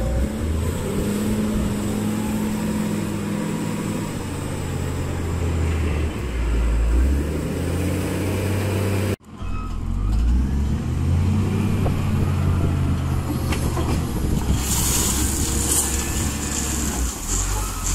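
Wheel loader's diesel engine running and revving up and down as it works. Late on, gravel pours from its bucket into a dump truck's bed with a hiss. The sound breaks off for a moment about halfway.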